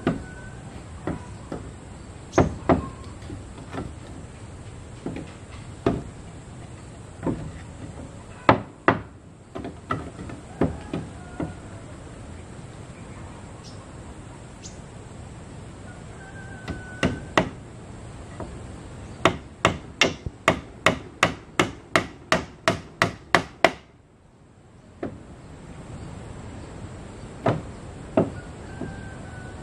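A hammer nailing wooden boards onto a plank wall, with scattered blows at first. About two-thirds of the way through comes a quick, even run of about a dozen strikes, roughly three a second, and the blows pick up again near the end.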